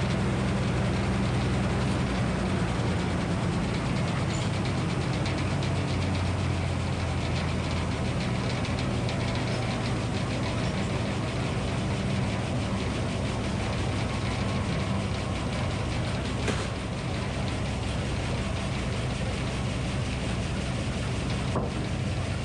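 Minneapolis-Moline HEB 605 cubic inch engine running steadily at a sawmill, its low note shifting slightly about a third of the way through.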